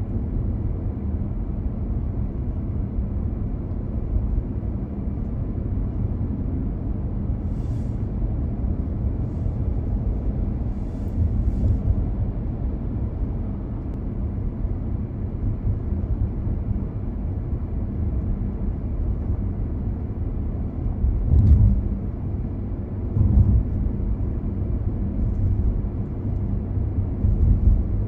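Car on the move: steady low rumble of tyres and engine, with a few brief louder bumps about three-quarters of the way through.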